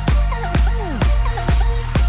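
Electronic dance music with a steady four-on-the-floor kick drum, about two beats a second, and gliding synth lead lines over a bass.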